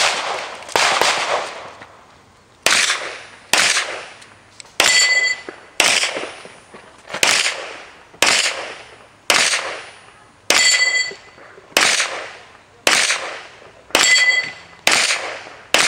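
Pistol shots fired in a practical-shooting course of fire, about fourteen in all at roughly one a second, each sharp report trailing off in a long echo; a few are followed by a short ringing tone.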